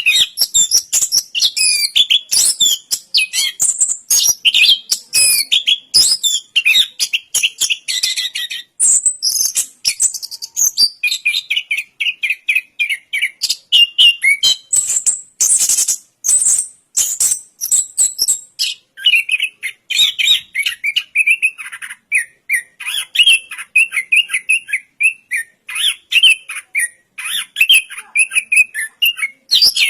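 Chestnut-capped thrush (anis kembang) singing a long, unbroken song of rapid, varied high chirps, trills and whistled glides, phrase after phrase with hardly a pause.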